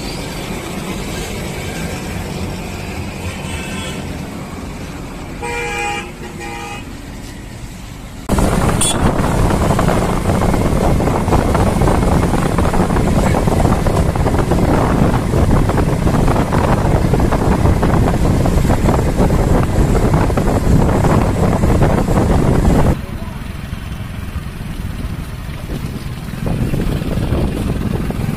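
Motor vehicle running, with two short horn toots about six seconds in. From about eight seconds in, a loud steady rush of engine and wind noise sets in and drops away suddenly about twenty-three seconds in.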